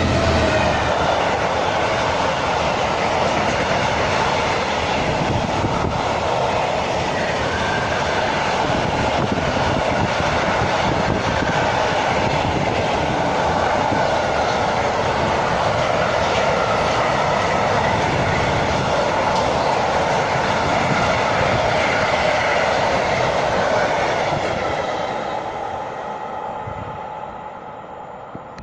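A train passing along the main line beside the platform: a loud, steady rush of wheel and rail noise that lasts over twenty seconds, then fades away over the last few seconds as the train recedes.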